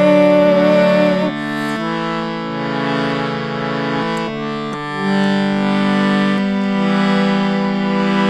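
Instrumental interlude of a Gurmukhi mantra chant: sustained held chords that change every second or two, after the last sung note fades out about a second in.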